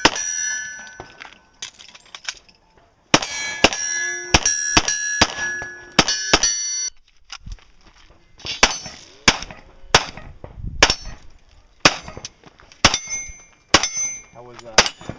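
Pistol shots fired in quick strings at steel plate targets, with hits ringing out as a clang after the shot. The first string pauses two to three seconds in, and about seven seconds in another string starts with fewer ringing hits.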